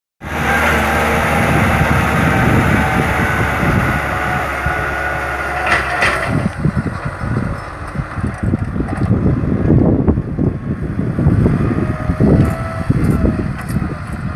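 Kubota tractor engine running, steady for about the first six seconds, then rougher and uneven.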